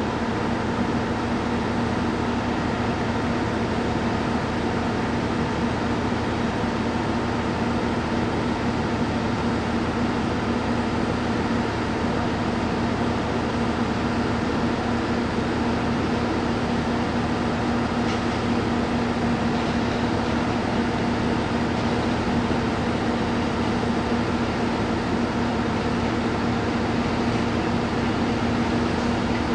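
KiHa E130-500 series diesel railcar's engine running with a steady drone as the train rolls slowly in toward the platform.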